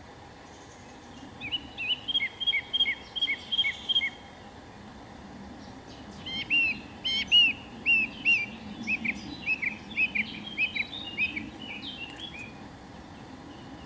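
A songbird singing two phrases of repeated short, clear whistled notes: about a second and a half in, a run of paired notes lasting some two and a half seconds, then from about six seconds a longer run of similar arched notes at two to three a second. A low steady background rumble sits under the song.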